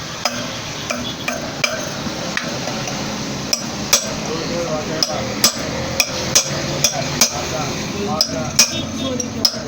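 Hammer tapping on a metal motorcycle hub part in sharp, separate strikes, about two a second, that grow louder and more regular in the second half.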